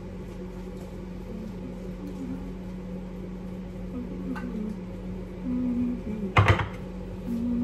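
Steady low hum of a kitchen appliance, with a sharp knock about six and a half seconds in as a spatula strikes a glass mixing bowl.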